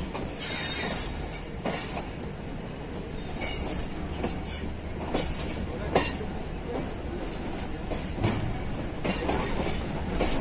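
Passenger train coach wheels rolling over rail joints and points as the train pulls out, heard close from an open coach door: a steady low rumble with irregular clanks and clicks, the sharpest about six seconds in, and a brief high squeal near the start.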